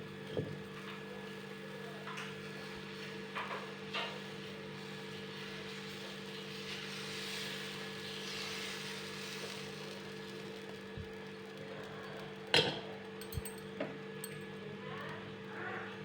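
A dosa cooking on a hot pan: a soft sizzling hiss swells in the middle over a steady low hum. A few light clinks and knocks of utensils, the loudest about twelve and a half seconds in.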